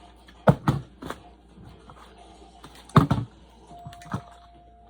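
A plastic bottle being flipped and hitting a table: sharp knocks in quick clusters of two or three as it lands and bounces, about half a second in and again about three seconds in, with a single knock near the end.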